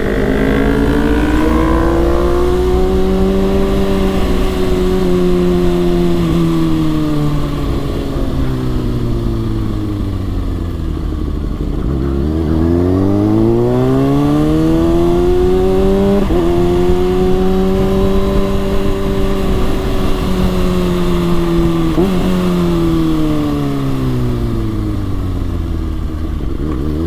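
Kawasaki ZX-6R 636 inline-four engine under way: it revs up and holds, then slows down gradually to a low point about halfway through, revs up sharply again and holds, then slows gradually once more, rising again at the very end.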